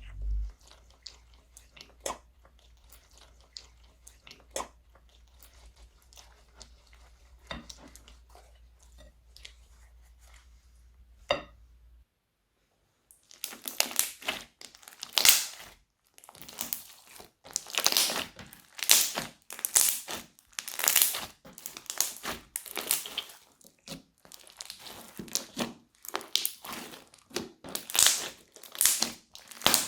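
Plastic crinkling and crunching as crunchy slime made with cut-up plastic piping bags is squeezed and pressed. There are only sparse faint crackles for about the first twelve seconds, then a steady run of loud crinkles and crunches.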